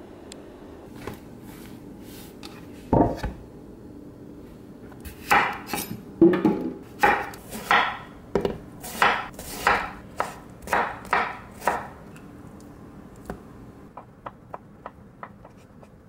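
Kitchen knife cutting vegetables on a wooden cutting board. There is a single thump about three seconds in. Then comes a run of about a dozen crisp cuts through cucumber, roughly one and a half a second. Near the end, a few lighter taps come as the knife slices through soft avocado.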